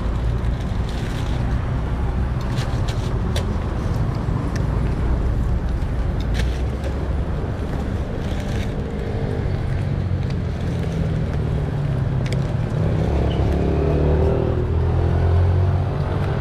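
Road traffic: a steady low engine rumble with a vehicle passing louder about thirteen seconds in, and scattered light clicks and scrapes.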